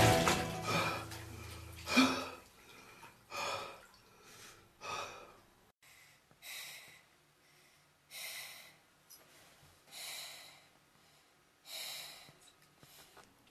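A man breathing heavily: about seven short, sharp breaths, one every one and a half to two seconds, with quiet between them. Music fades out over the first two seconds.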